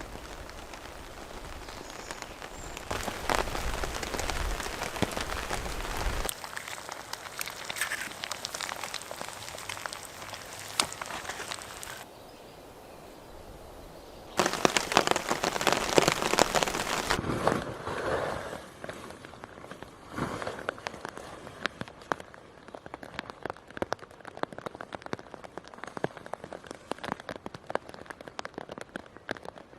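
Steady rain with many sharp drop clicks. The sound changes suddenly several times, getting louder or quieter and brighter or duller.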